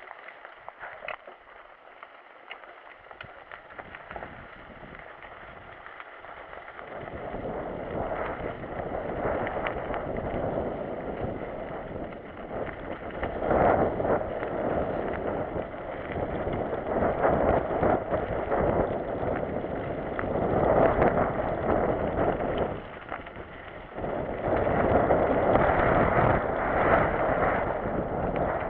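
Mountain bike rolling down a wet, rough dirt trail: tyre and frame rattle over the ground with wind buffeting the microphone, starting faint and growing loud after about seven seconds as the bike picks up speed, with surges and a brief lull near the end.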